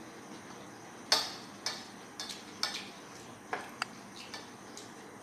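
Scattered sharp clinks and taps of tableware on a table: plates, foil takeaway trays and a drinking glass handled during a meal, about eight in all, the loudest a little over a second in.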